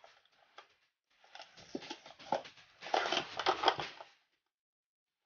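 Plastic packaging on a small retail box being torn open and crinkled by hand, a dense crackling rustle. It starts faint, grows louder after about a second, and stops about four seconds in.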